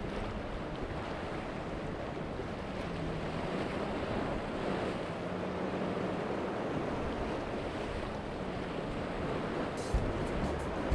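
Outdoor ambience of shallow seawater and wind noise on the microphone, with a faint steady low hum. Near the end, music with a beat starts.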